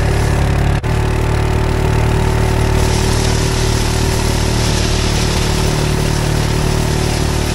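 Vehicle engine running steadily as it drives over a shingle beach track, over a rough rumble of tyres on the stones. There is a brief dropout just under a second in, and the hiss of tyres and wind grows from about three seconds in.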